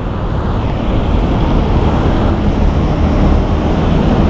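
Steady rumbling outdoor noise: road traffic with wind buffeting the microphone.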